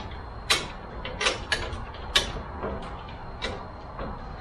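Hands fitting the metal and plastic parts of an aftermarket frunk opener under a car's front hood: an irregular string of sharp clicks and clacks, the loudest about half a second, one and a quarter seconds and two seconds in.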